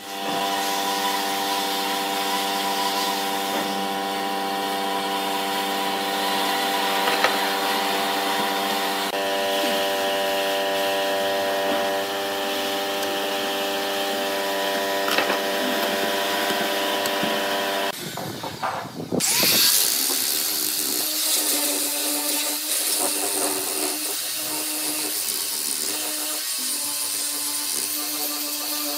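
An angle grinder with a sanding disc running against wood, sanding it, starting about two-thirds of the way in. Before that, a steady machine hum made of several fixed tones.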